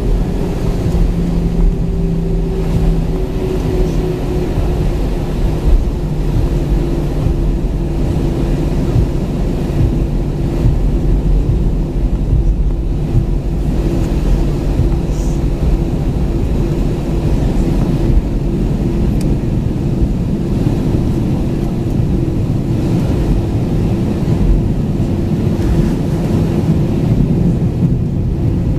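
Airbus A320-214 taxiing at idle thrust, heard inside the cabin: a steady low rumble and hum from its CFM56 engines and rolling gear, with a couple of held low tones, one sliding slightly lower in the first few seconds.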